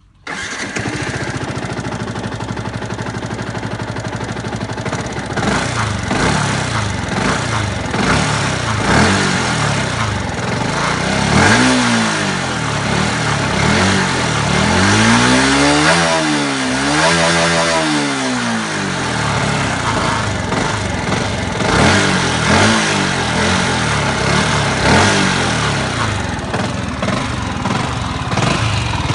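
Yamaha YZF-R125's single-cylinder four-stroke engine on its original stock exhaust, starting up and settling into a steady idle. It is then revved several times, the pitch rising and falling, with the biggest revs coming about halfway through.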